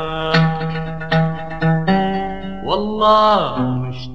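Sudanese popular song's instrumental interlude: a band plays the melody with sharp plucked notes and a gliding phrase a little past the middle.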